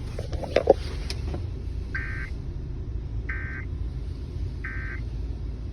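Emergency Alert System end-of-message code: three short, identical bursts of warbling digital data tones, about a second apart, marking the end of the alert. A steady low rumble runs underneath.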